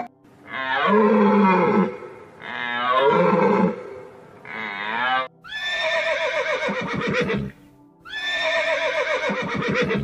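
Horse whinnying twice, each a long shaky call of about two seconds. Three shorter calls that fall in pitch come before them.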